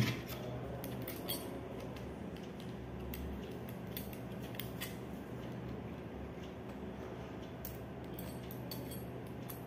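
Light clicks and taps of small brass and plastic drain-valve parts being handled and fitted together by hand, the sharpest click right at the start, over a faint steady low hum.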